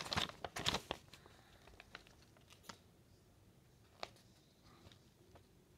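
Sheets of printed paper rustling and crinkling as they are handled, a quick flurry in the first second, then a few scattered light rustles and clicks.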